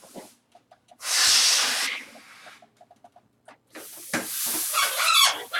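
A person blowing air hard through two fingers held together: two loud hissing blasts of breath, the first about a second in, the second near the end with squeaky whistling tones in it.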